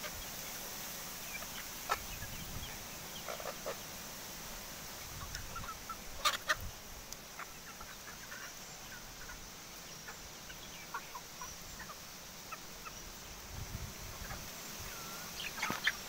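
A mixed flock of desi chickens and roosters making short, scattered calls over a steady hiss, with a few sharp clicks, the loudest about six seconds in and again near the end.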